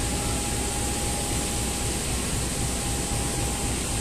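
BB 203 class diesel-electric locomotive idling: a steady engine rumble under an even hiss, with a faint thin whine over it that drops out briefly about halfway.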